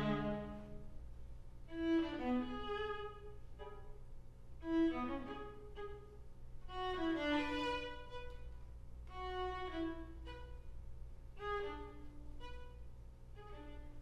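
String quartet of two violins, viola and cello playing a contemporary piece. Short bowed phrases come about every two seconds, some sliding in pitch, with brief pauses between them and growing softer toward the end.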